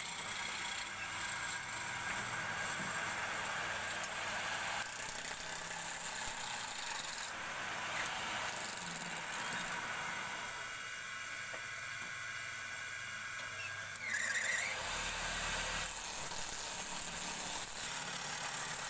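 Wood lathe spinning a square timber blank while a hand-held turning tool roughs it down to a cylinder: a steady hissing scrape of the tool cutting the wood. Faint thin high tones come and go partway through, and the level rises briefly near the end.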